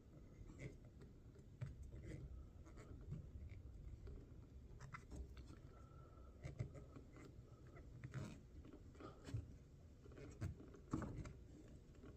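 Faint, scattered clicks, light knocks and scrapes of parts being handled by hand.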